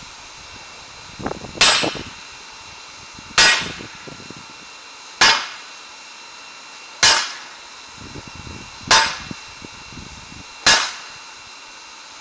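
Heavy hammer blows on a red-hot steel sword blade lying on a steel block anvil, six strikes about one every second and three-quarters. Each strike is a sharp metallic clang with a brief ring.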